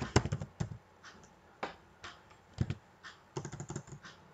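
Typing on a computer keyboard: slow, uneven keystrokes, with a quick run of keys at the start, a few single taps in the middle, and another quick cluster a little before the end.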